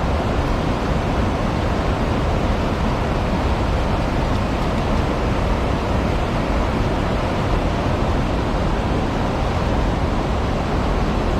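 Steady rushing of flowing creek water, an even, unbroken noise.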